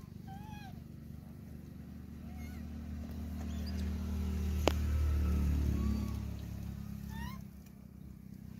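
A vehicle going past on the road: a low engine hum swells to a peak a little past the middle and then fades. A few short high chirping calls come and go, and there is one sharp click just before the peak.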